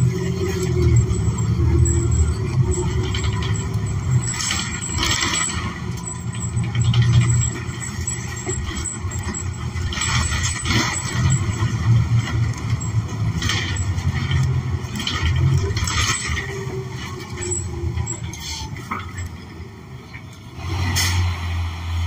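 Inside a New Flyer XN40 city bus under way: its Cummins Westport ISL G natural-gas engine running with a steady low rumble, and the cabin rattling and clunking several times over the road.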